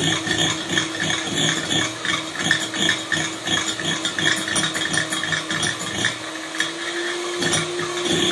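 Electric hand mixer running steadily, its beaters whipping eggs in a bowl with an uneven rattle; the motor's hum steps slightly higher in pitch about six seconds in.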